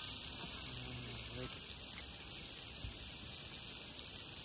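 A steady high hiss, with faint voices in the background.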